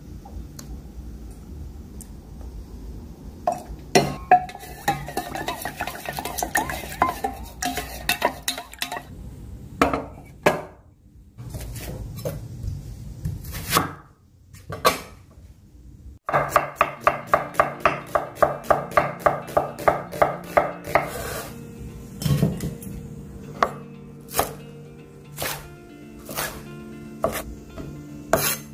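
Kitchen knife chopping on a cutting board: a quick, even run of about four to five chops a second starting a little past halfway and lasting about five seconds, then slower single chops. Before that, dishes and utensils clink as food is handled.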